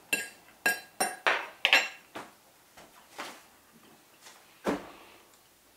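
A metal fork scraping and clinking against a dinner plate of curry. About six quick strikes come in the first two seconds, then a few scattered clinks over the next three.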